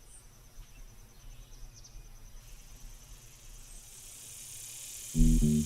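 Insects trilling, a fast pulsed high note over faint outdoor ambience, with a hiss swelling up. About five seconds in, loud upbeat music cuts in with a bass line.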